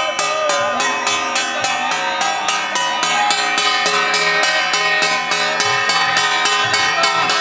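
Indian devotional music: a fast, steady metallic beat of about four to five strikes a second over sustained held tones and a wavering melody line.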